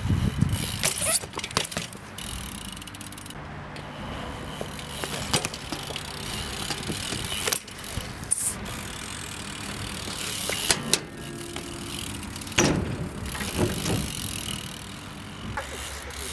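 BMX bike ridden on a concrete skatepark: tyres rolling on concrete, broken by several sharp knocks from landings and the bike striking ramps.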